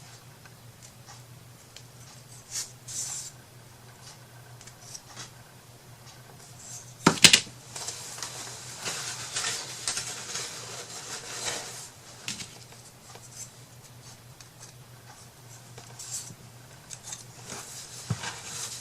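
Craft pieces being handled on a work table: scattered light taps and clicks, a sharp knock about seven seconds in, then a few seconds of rustling and rubbing, over a steady low hum.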